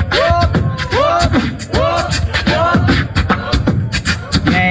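Live human beatboxer laying down a hip hop beat: quick, regular mouth-made drum hits under a repeating pattern of swooping, rise-and-fall vocal tones, the beat for a rapper to freestyle over.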